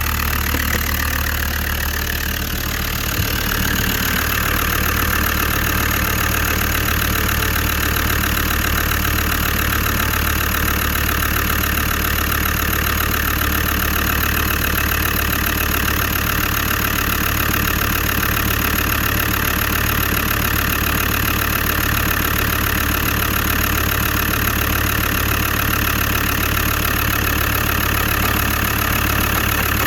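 Land Rover Td5 five-cylinder turbodiesel idling steadily, freshly started after the cooling system was refilled, with the coolant being watched for air bubbles. There is one light tick about three seconds in.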